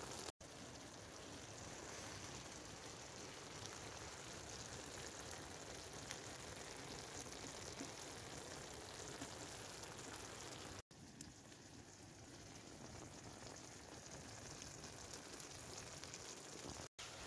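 Potato curry simmering in a pan, a faint, steady bubbling and sizzling. The sound drops out briefly three times.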